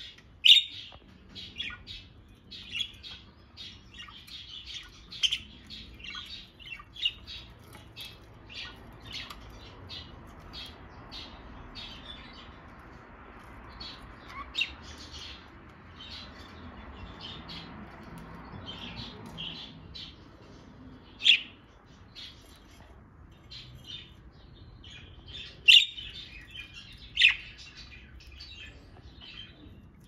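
A small flock of budgerigars chirping and chattering: a steady run of short, high chirps, with a few sharp, louder calls standing out.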